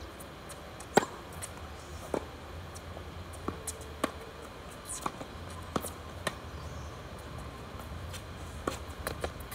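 Tennis balls struck by rackets and bouncing on a hard court during a doubles rally: a serve about a second in gives the loudest pop, followed by more sharp pops roughly every second as the ball is hit back and forth, over a low background hum.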